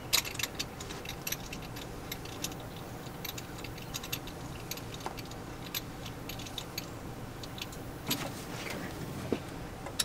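Scattered light metallic clicks and clinks of tools and engine parts being handled under the hood. The engine itself is not running.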